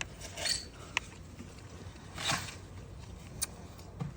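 Faint handling noises from bolts and parts being fitted by hand on a mower's carburetor: two brief scrapes and a few small clicks over a low steady hum.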